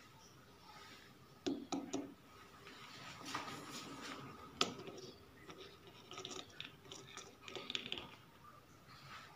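Faint handling noise around a rough jade boulder and a flashlight: scattered clicks and scrapes. There is a quick run of three clicks about a second and a half in, a sharper single click near the middle, and more small clicks and scratches later on.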